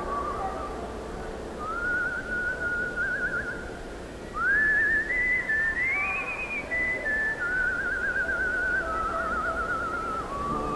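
A man whistling a slow melody into a microphone, the held notes wavering with vibrato. About four seconds in he slides sharply up to a higher, louder phrase, over a faint orchestral accompaniment.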